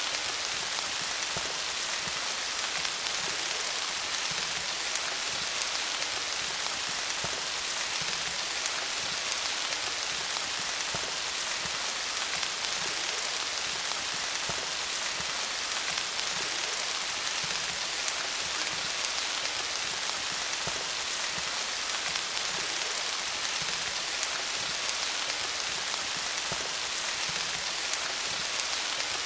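Steady rain falling on leaves: a dense, even patter of many small drops.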